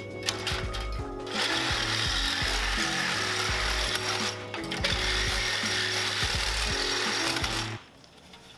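Reciprocating saw (Sawzall) cutting through a scrap HVAC evaporator coil, a rattling, harsh cutting noise with a short break near the middle, stopping shortly before the end.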